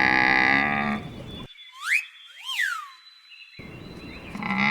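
Camel calling: a long, low drawn-out call at the start and another beginning near the end, with two short high whistling glides in between.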